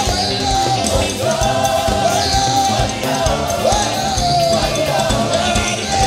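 Live African praise music: a choir and lead singers singing a gliding melody over instrumental accompaniment with a steady drum beat.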